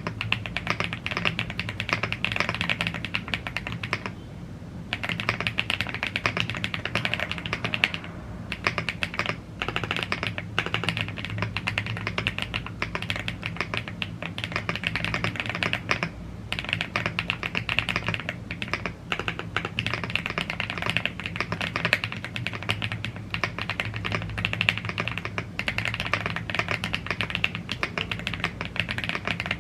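Fast, continuous typing on a YUNZII AL75 gasket-mounted aluminium mechanical keyboard with Blue Grey tactile switches and double-shot PBT keycaps, with short pauses about four seconds in and about sixteen seconds in.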